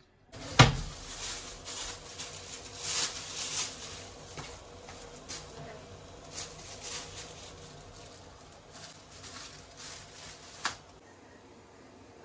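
Rustling and knocking noises, opening with a sharp knock about half a second in, then a run of scuffs and clicks that dies away near the end.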